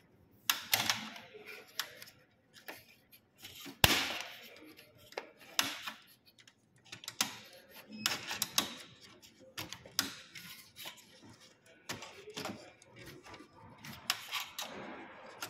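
Thin screwdriver prodding and prying at the plastic drum lock inside an HP Laser Tank printer, making irregular plastic clicks, taps and short scrapes, with one sharp click about four seconds in.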